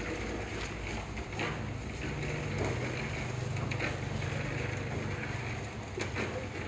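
A low engine hum comes in about two seconds in and fades after a few seconds, over construction-site noise with scattered knocks and taps.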